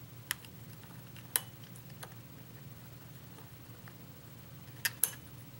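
A few sharp metal clicks and taps of small hand tools on a lock being taken apart, the last two close together near the end, over a low steady hum.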